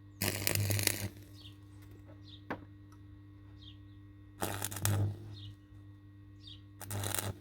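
Electric arc welder crackling in three short bursts, the first near the start, the second after about four and a half seconds, the last near the end: tack welds on the broken steel strap of a hammer, over a steady electrical hum.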